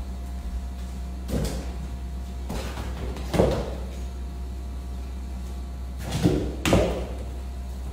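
Soccer ball kicked against a wall and bouncing on a tiled floor: about five separate thuds, the loudest a little past the middle and a close pair near the end, over a steady low hum.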